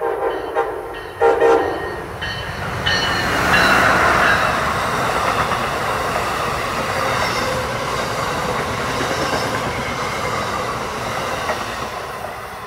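Amtrak Northeast Regional train sounding a few short horn blasts as it approaches, then passing at speed with a loud rush of air and wheels clattering over the rails, fading near the end as the last coach goes by.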